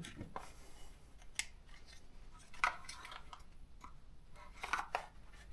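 A few light clicks and scrapes of a tool prying at a chainsaw's rubber intake boot and plastic handle, spaced a second or more apart.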